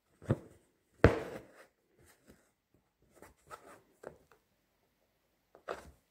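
Embroidery needle and thread being pushed and pulled through fabric stretched taut in a wooden hoop: a few separate soft taps and scratches, the loudest about a second in.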